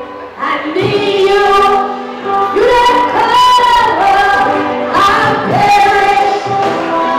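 Gospel choir singing, led by a female soloist on a microphone who holds long notes with a wavering vibrato. The voices swell in about half a second in.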